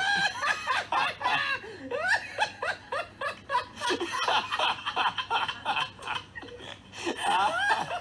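People laughing hard in repeated bursts, easing off a little past the middle and building again near the end.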